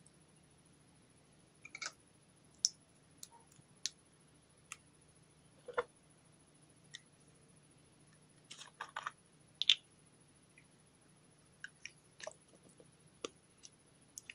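Putty slime being worked by hand, giving off irregular sharp sticky clicks and pops, with a small cluster of them near the middle and the sharpest just after.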